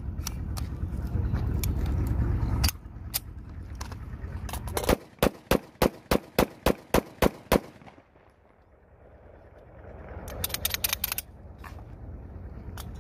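Tisas Zigana F 9mm semi-automatic pistol firing a rapid string of about ten shots, three to four a second, as a magazine is emptied.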